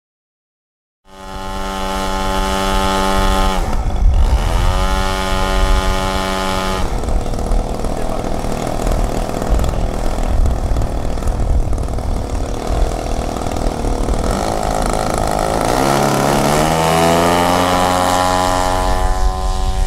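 Engine of a radio-controlled scale model RV-4 airplane, starting to be heard about a second in. It runs steadily at idle, dips and picks up once a few seconds in, then runs unevenly while the model taxis. Over the last few seconds it rises steadily in pitch as the throttle is opened for the takeoff run.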